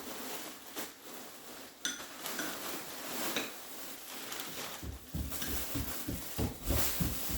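Small clinks and rustling of objects being handled on a table, with uneven low thuds near the end.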